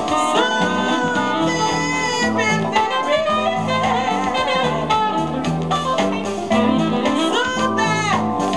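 A jazzy modern-soul record playing from a 7-inch vinyl single on a turntable: a melodic lead line that glides and bends over bass and a steady rhythm section.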